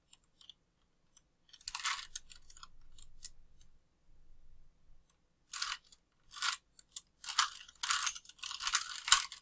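Plastic 3x3 Rubik's cube being turned by hand: rasping, clicking layer turns, a short cluster about two seconds in and a quicker run of turns over the last few seconds.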